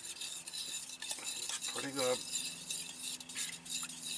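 Hot sauce and melting butter being stirred in a pan, the utensil clicking and scraping against the pan over a faint sizzle.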